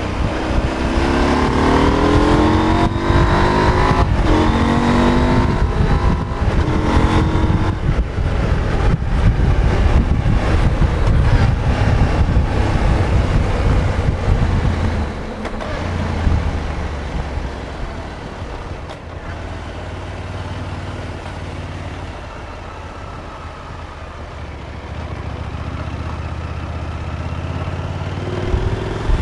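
KTM 890 Adventure's parallel-twin engine on its stock exhaust, heard from the rider's seat. It accelerates with rising revs at the start and runs loud at road speed with wind rush. About fifteen seconds in it eases off to low revs as the bike slows, then picks up again near the end.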